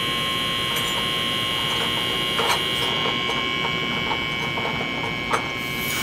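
Homemade air compressor running steadily with a high-pitched whine and a few light ticks. It is pumping air into a car's air-conditioning system, building pressure toward about 200 psi for a leak test.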